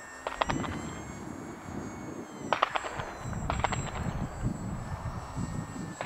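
Thin, distant whine of an RC plane's electric motor and propeller in flight, over a rumble of wind on the microphone. Three short clusters of sharp clicks break in: near the start, about two and a half seconds in, and again a second later.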